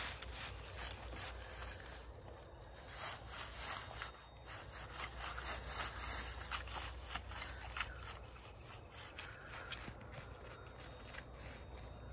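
Dry leaf litter and twigs rustling and scraping, with many small crackles, as a metal detector coil is swept low over the forest floor and a person shifts among fallen branches.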